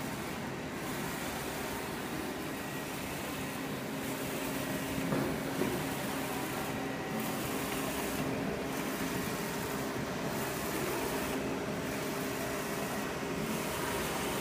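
UV flatbed printer running: a steady whirring hiss and hum from its moving print-head carriage, lamp and fans. The hiss dips briefly about every one and a half seconds.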